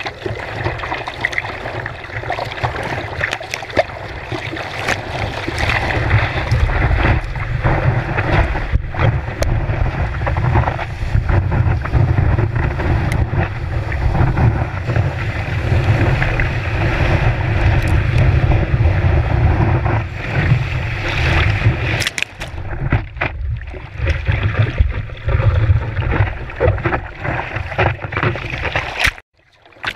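Rushing water and wind buffeting the microphone of a board-mounted action camera as a surfboard paddles into and rides a wave through whitewater, with scattered splashes and a deep rumble. The sound cuts out for about a second near the end.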